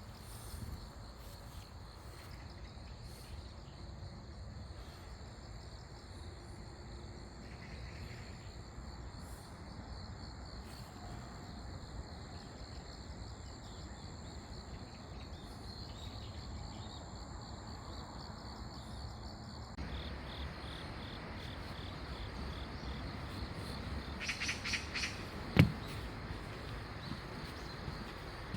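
Crickets chirring steadily in a high, even trill over a low rumble. Near the end a short run of rapid bird chirps, followed by one sharp click.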